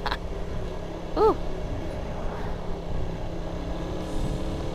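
A motor vehicle running steadily along the road, with a constant low rumble and hum. About a second in there is one short tone that rises and falls.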